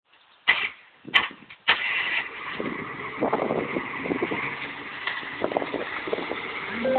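Unimog truck's engine running as it crawls up onto a pile of logs, with scattered knocks and creaks. It opens with three loud, sharp bangs within the first two seconds.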